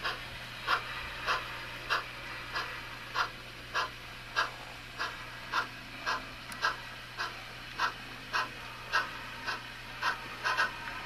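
Slow, even steam exhaust chuffs from the sound system of a model 1922 Baldwin 2-6-0 steam locomotive, a little under two chuffs a second as it pulls its train at low speed, over a steady low hum.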